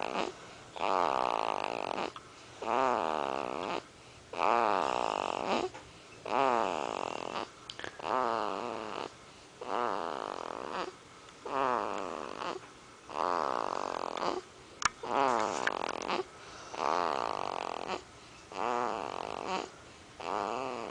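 Deep-sleep snoring, one loud snore about every two seconds in a steady rhythm, each snore sliding down in pitch and trailing into a quieter breath before a short pause.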